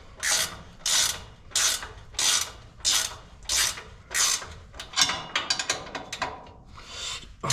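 Hand ratchet wrench tightening down bolts: a rasping run of pawl clicks on each swing, about three strokes every two seconds, switching to short, quick strokes about five seconds in.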